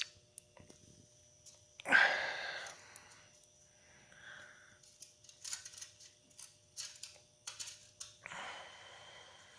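Scattered light metallic clicks of a wrench working loose the oil drain plug on a small four-stroke engine, with two short louder rushing noises, one about two seconds in and one near the end.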